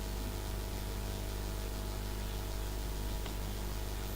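Steady low hum with an even hiss, and a faint click about three seconds in.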